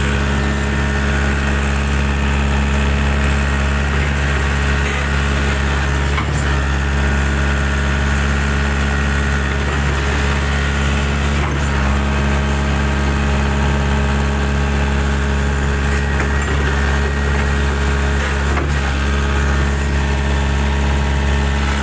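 Engine running steadily at one constant speed, a deep even drone that doesn't rev up or down, with a few faint knocks.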